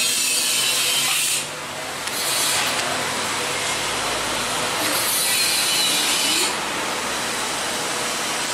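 Loud steady hissing noise, with a harsher high hiss that cuts in and out abruptly: for about the first second and a half, briefly after two seconds, and again from about five to six and a half seconds in.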